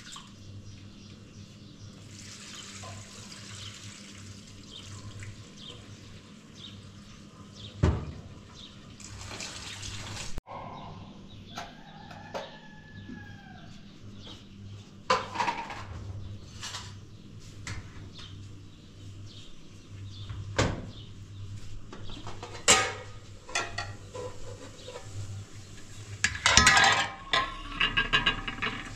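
Water splashing and pouring, with scattered knocks and clinks, the loudest cluster near the end.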